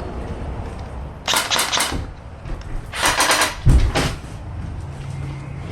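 Two quick bursts of rapid shots from training guns, the first about a second in and the second about three seconds in, with a heavy low thump just after the second burst.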